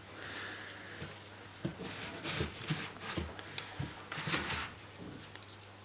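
Handling noise of metal combination spanners: a series of light knocks, clicks and rustles as the spanners are picked up and moved about, with a faint steady hum underneath.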